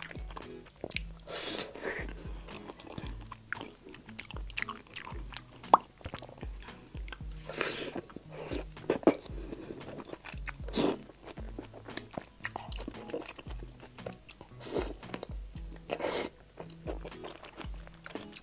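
A person biting and chewing sauce-soaked food up close: a boiled egg dipped in chili sauce, then a soft fried green chili pepper, with wet mouth sounds. Background music with a steady beat plays underneath.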